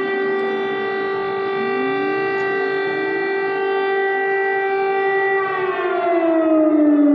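Civil-defence air raid siren sounding a loud, steady held tone; about five and a half seconds in its pitch starts to fall as it winds down. A fainter second siren rises in pitch beneath it partway through.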